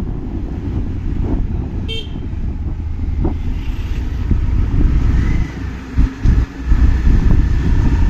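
Moving motorbike's engine and wind rumbling on the microphone, in traffic, with a short horn toot about two seconds in.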